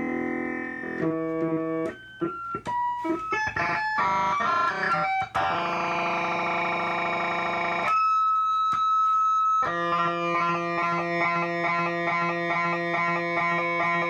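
Instrumental music played live: a sustained chord, then a run of separate single notes, a lone held high note about eight seconds in, and from then on a chord pulsing quickly and evenly, about four times a second.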